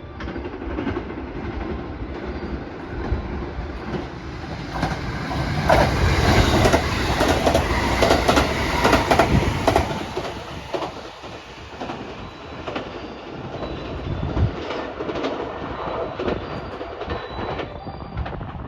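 Limited express electric train running through a station at speed without stopping, wheels clicking over rail joints. It is loudest about five to ten seconds in, then fades as it goes away.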